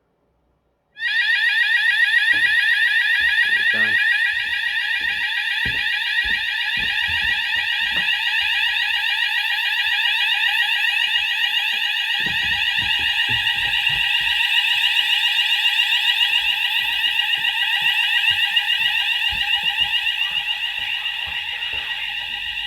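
The fire alarm sounders of a Hochiki ESP addressable fire alarm system go into alarm abruptly about a second in and sound continuously with a loud, fast-sweeping electronic tone. The alarm has been set off by a detector under test.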